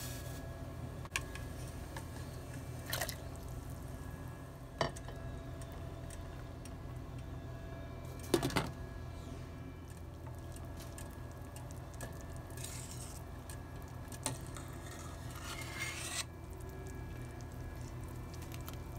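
Cooking pot clatter: a stainless steel stockpot and its glass lid clink and knock a few times over a steady low hum, the loudest a quick double clink about eight seconds in. Near the end there are two short bursts of hiss.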